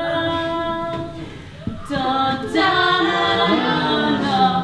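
Wordless a cappella singing by two voices, a long held note, a brief dip, then overlapping sung notes with a lower voice sliding down in pitch near the end.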